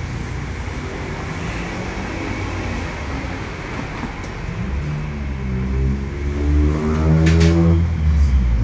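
A motor vehicle engine runs steadily, then from about halfway through it grows louder and rises in pitch as it revs up, dropping away right at the end. A single sharp knock comes near the end.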